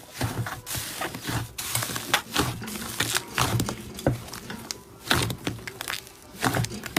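Slime being squeezed and pressed by hand, giving a run of irregular sticky crackles and small pops.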